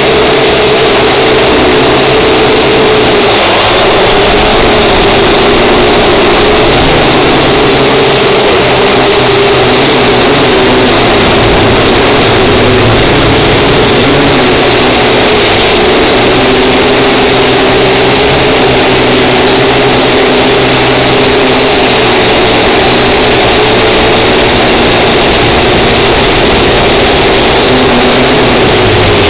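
Small quadcopter drone's motors and propellers whining, heard close up from its own onboard camera. The steady buzz drifts slightly up and down in pitch as the drone manoeuvres.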